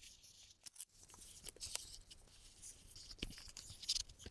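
Faint rustling of paper and plastic packaging with scattered light clicks and taps as accessories are taken out of a keyboard box.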